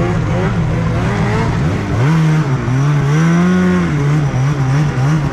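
Snowmobile engine running hard under throttle as the sled is ridden through deep snow, its pitch rising and falling several times as the rider works the throttle, highest in a long rise about halfway through.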